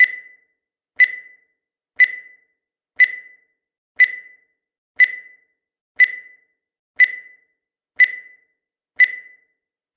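Countdown timer sound effect: a short, high-pitched beep or tick once every second, each dying away quickly, ten in a steady even rhythm.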